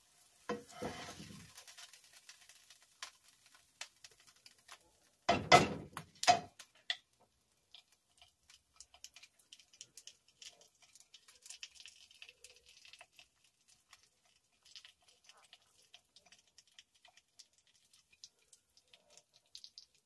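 A spatula scraping a fried egg off a nonstick frying pan, with a loud clatter about five and a half seconds in, then faint scattered clicks and taps of a plate and utensils.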